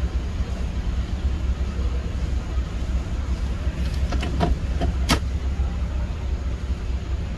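Ford E150 van's engine idling with a steady low rumble, heard from inside the cabin, with a few sharp clicks about four to five seconds in.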